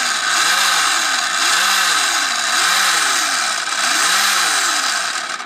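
Arrma Senton 3S BLX drivetrain running with a 3D-printed PLA spur gear: a loud, gritty whir of motor and gears, with the pitch rising and falling about once a second as the throttle is pulsed. The new printed gear is grinding and shedding dust as it meshes.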